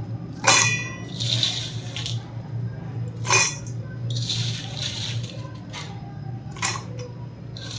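Sugar-coated cashews being scooped off a steel plate by hand and dropped into a stainless-steel mixer-grinder jar: a few sharp clinks, the first ringing briefly, with scraping and rustling between them. A steady low hum runs underneath.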